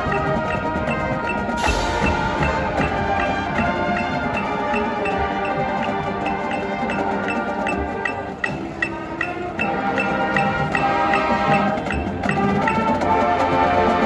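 Marching band playing a halftime show, with mallet percussion (bells, marimba or xylophone) ringing out in a steady run of struck notes over held band chords. The music thins briefly just past the middle, then swells back fuller and louder near the end.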